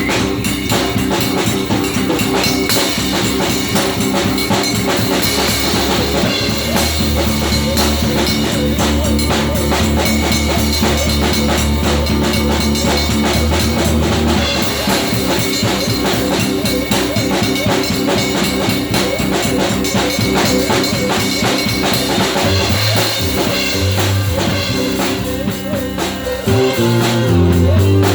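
Rock music with a steady drum-kit beat, bass and guitar.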